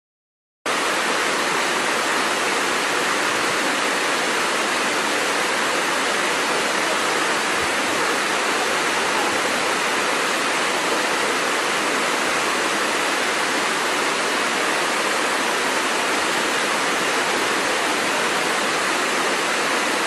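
Waterfall rushing, a steady, even roar of falling water that cuts in abruptly under a second in.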